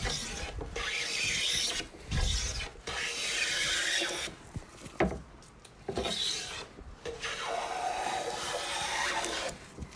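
Metal hand plane with a freshly sharpened iron being pushed along the edge of a wooden board. Several strokes, each a second or two long, with short pauses between them. The plane is taking clean shavings the whole length of the board.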